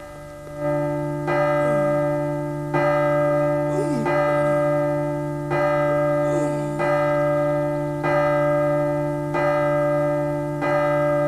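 A large bell tolling steadily, struck about every 1.3 seconds with each stroke ringing on into the next. A few faint sliding tones can be heard between strokes.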